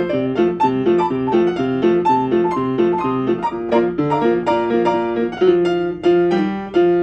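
Piano playing a tune: a steady, rocking accompaniment of alternating low notes under a melody of single notes, several notes a second.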